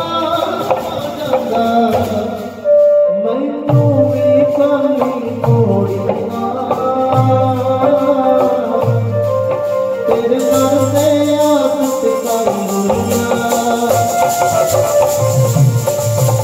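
Live Sikh devotional music played through a PA sound system: harmonium and tabla with a small hand drum, voices singing over them, and a deep drum stroke about every second and a half.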